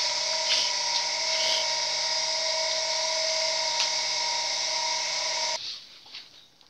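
A steady machine whine with hiss, like a small electric motor running, cuts off suddenly near the end. After it come faint soft rustles and clicks of hands working flour in a bowl.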